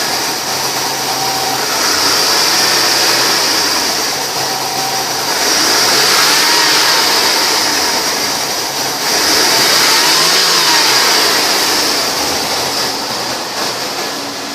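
2006 Chevy Avalanche's 5.3-litre V8 running just after starting, revved up and let back down to idle a few times.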